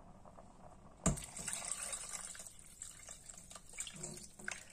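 Water poured from a mug into a pot of cabbage and minced-meat soup, starting suddenly about a second in and running on as a steady splashing pour.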